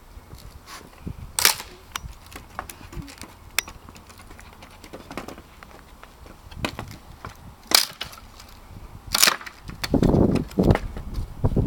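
Pallet boards being levered apart with a steel pallet-breaker bar: sharp cracks of wood splitting and nails letting go, three of them loud, among smaller knocks and clicks, with a low rumble near the end.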